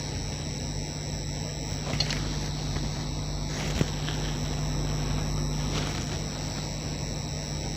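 Steady running noise inside a moving passenger vehicle: a low hum and rumble with a faint steady high whine, and two light clicks about two and four seconds in.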